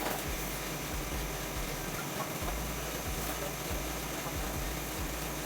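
An engine running steadily under an even hiss, the sound of a running engine-driven pump set.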